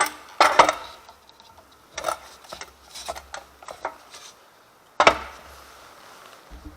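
Metal parts of an angle grinder stand being handled and tightened by hand: a string of irregular clicks and knocks, with a sharper clank about five seconds in.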